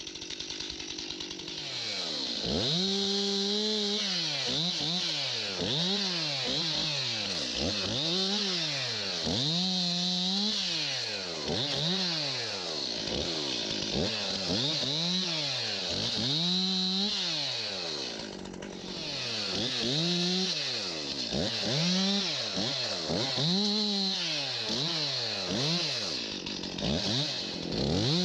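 Chainsaw revving up and down again and again, about once every second and a half, as it cuts, with a short drop in revs about two-thirds of the way through.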